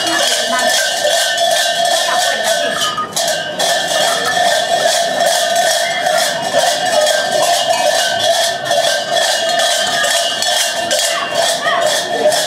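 Cowbells worn on a botarga's costume clanking and jangling without pause as the costumed figures move about, with many overlapping strikes ringing on one another.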